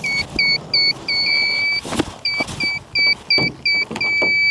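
Electronic beeper sounding a run of high-pitched beeps, short and long in an irregular pattern, with a few handling thumps among them.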